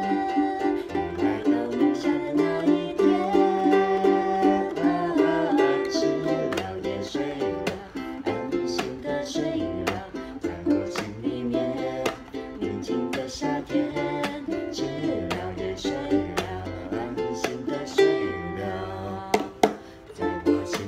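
Two ukuleles played together in steady strummed rhythm, with a woman singing along at times.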